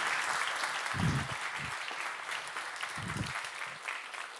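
Audience applauding, slowly dying away, with two dull low knocks about a second and three seconds in.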